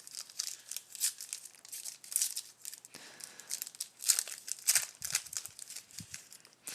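Foil wrapper of a trading card pack crinkling and tearing as it is opened: an irregular run of crackles.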